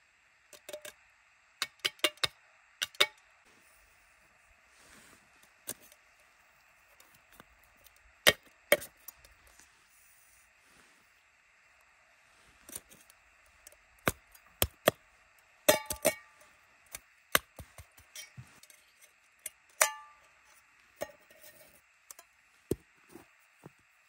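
Stainless steel camping cup and pot clinking, knocking and scraping as snow is scooped into them and the pieces are fitted together: a series of sharp metal clinks, some ringing briefly, heaviest about eight seconds in and again around sixteen and twenty seconds.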